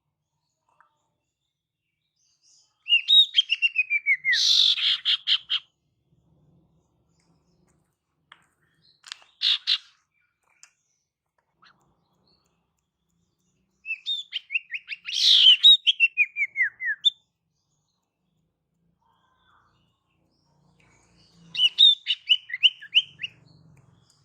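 Female common iora (sirtu, cipoh) calling: four separate phrases, each a quick run of clear notes, several stepping down in pitch, with silent gaps between them. This female song is used as a lure to draw in males.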